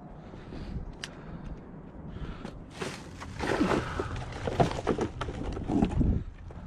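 Scrap metal pieces being rummaged through and handled, a few light clicks at first, then a busier run of clanks and rattles with short ringing tones from about three seconds in until about six seconds in.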